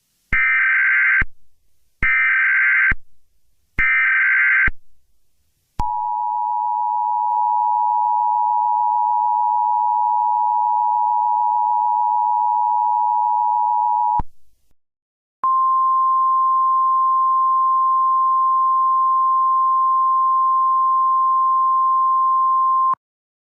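Emergency Alert System alert tones: three short screeching bursts of the SAME digital header, then the two-tone EAS attention signal held for about eight seconds. After a brief gap comes a single steady NOAA Weather Radio warning tone for about seven seconds, announcing a severe thunderstorm warning.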